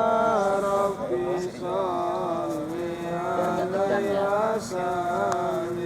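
A voice chanting the sholawat in long, drawn-out, wavering notes, with short breaths about a second in and again near the end.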